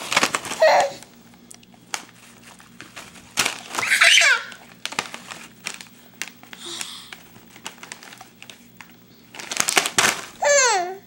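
Plastic Graduates snack bag crinkling in bursts as it is grabbed and shaken, loudest near the start and about four seconds in. A short high baby squeal comes about four seconds in.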